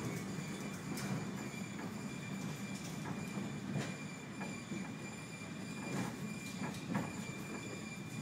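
Blackpool Standard tram 159, a vintage electric tram, moving slowly along the depot track. Its running gear rumbles steadily under a constant high whine, with scattered clicks and knocks.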